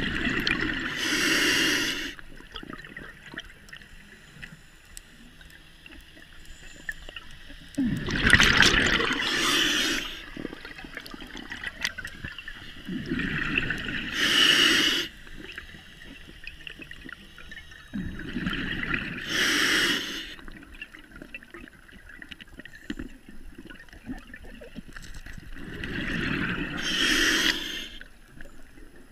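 Scuba diver breathing through a regulator underwater: five breaths several seconds apart, each a hiss of the regulator and a rush of gurgling exhaled bubbles, with quiet water noise between.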